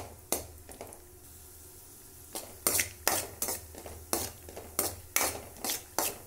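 A metal spoon stirring cashew nuts frying in ghee in a metal kadai, scraping against the pan over a soft sizzle. The stirring pauses about a second in, then picks up again at a steady two or three strokes a second. The cashews are being roasted to light brown.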